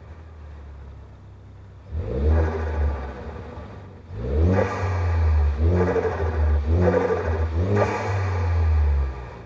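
2015 Ford Focus ST's turbocharged 2.0-litre EcoBoost four-cylinder, fitted with an Injen cold-air intake, idling and then revving. One short rev starts about two seconds in; a longer pull from about four seconds climbs in several steps before falling back near the end.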